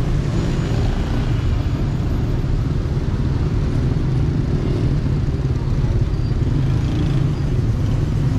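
Steady low rumble of motor vehicle traffic on a busy road.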